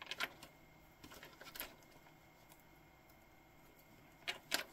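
Faint small clicks and taps from handling a stainless steel watch bracelet and a loose quick-release spring bar while it is being fitted into the end link. There are a few clicks near the start, a few more around a second and a half in, and two near the end.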